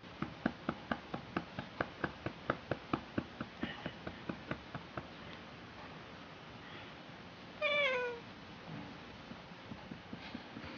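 A quick, even run of soft pats, about five a second, as a hand pats a cat at the base of its tail, stopping about five seconds in. A little later the cat gives one loud meow that falls in pitch.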